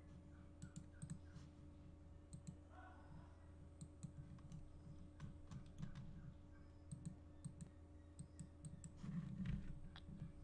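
Quiet, scattered clicks of a computer mouse and keyboard being worked, over a steady low electrical hum.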